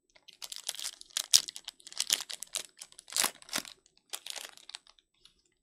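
Foil wrapper of a 2022 Topps Allen & Ginter Chrome hobby pack crinkling and tearing as it is ripped open by hand, in a run of irregular crackles that stop about a second before the end.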